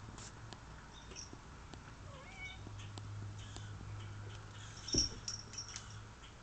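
A bird calling with short high chirps and a squeaky, mewing call about two and a half seconds in. A sharp knock about five seconds in is the loudest sound.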